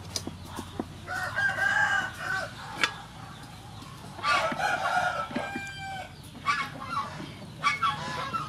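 Rooster crowing twice, each crow a little over a second long, followed by shorter clucking calls and a few light clicks.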